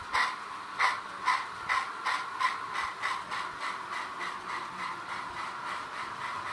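Model train of an A4 locomotive and LMS coaches running past: rhythmic clicking of the wheels over the track joints, about two to three clicks a second and growing fainter, over a steady running hum.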